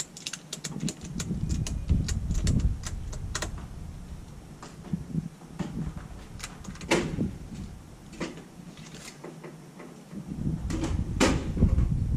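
Ratchet strap being cranked tight around a gun safe: a quick run of sharp ratchet clicks in the first few seconds, then scattered single clicks, over a low rumble.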